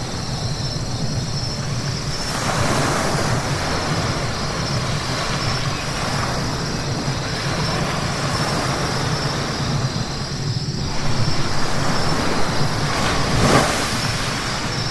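Road traffic on a wet road at night: a steady rumble of car and road noise with tyre hiss, swelling as vehicles pass about two and a half seconds in and again near the end.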